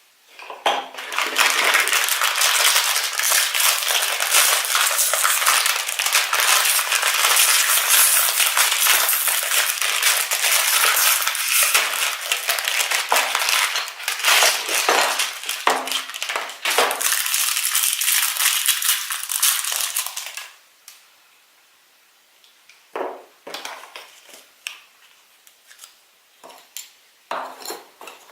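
Blind-bag packaging crinkled and torn open by hand, a dense crackling for about twenty seconds that stops abruptly. A few light clicks and taps of small items being handled follow.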